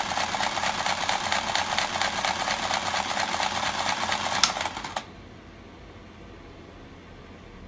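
Tabletop mechanical horse racing game running: its motor drives a fast, steady rattling buzz through the plastic track. A click sounds about four and a half seconds in and the rattle stops as the game is switched off, leaving a faint steady hum.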